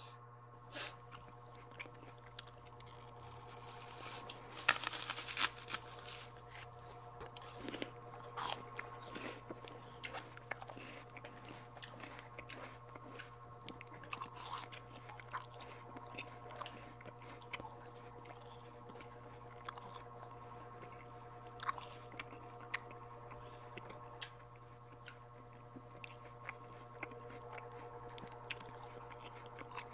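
Close-up mouth sounds of eating santol fruit: biting and chewing the soft white pulp off the rind segments, with many small irregular clicks and smacks, loudest about four to six seconds in.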